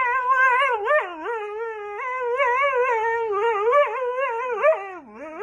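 A dog howling in one long wavering whine, its pitch sliding up and down, with brief breaks about a second in and near the end.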